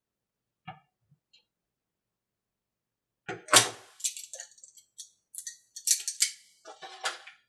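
Small plastic parts clicking and clattering as CA glue bottles, caps and applicator tips are handled: one faint tap about a second in, then a quick run of sharp clicks and rattles over the last four seconds, the first one the loudest.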